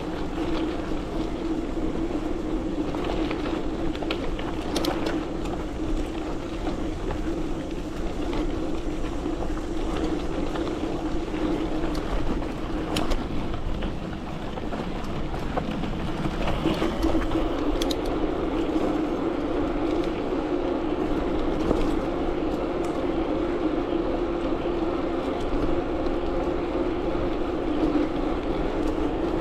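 A motor running steadily at one pitch while the bike is ridden, easing off briefly about halfway through and settling slightly lower. Scattered small clicks and knocks from the bumpy trail ride over the drone.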